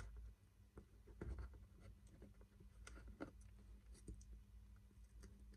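Quiet handling sounds: scattered soft taps and scrapes of fingers on a cardboard box while small decorative pearls are pressed onto its edge.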